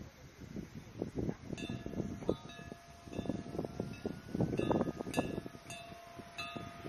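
Wind gusting on the microphone, with chimes ringing from about a second and a half in: several light strikes whose clear tones ring on and overlap.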